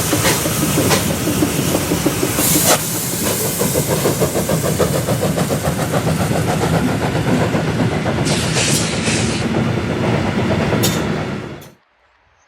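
Steam train of locomotive 98 886 passing close by: a loud rumble of wheels clacking over the rail joints, with short bursts of steam hiss. The sound cuts off suddenly about a second before the end.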